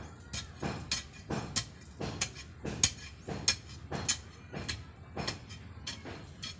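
A long-handled digging tool striking and scraping into gravelly garden soil in a steady rhythm, about one blow every half second or so, roughly a dozen times.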